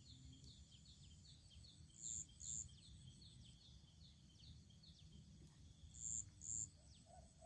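Birds calling: a high two-note call comes twice, about four seconds apart, over a steady run of quick, faint falling chirps.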